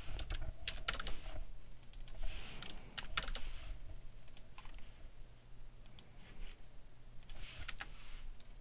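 Computer keyboard typing and mouse clicks: a few short key taps and button clicks in irregular clusters, as a number is typed into a form box and the mouse is clicked.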